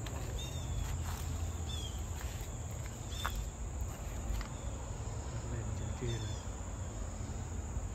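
Steady, high-pitched insect drone, with short chirps coming every second or two over a low rumble.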